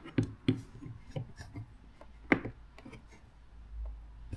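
Scattered light clicks and taps of plastic parts being handled as a fog light and its bracket are worked into a front bumper cover, with one sharper click about halfway through.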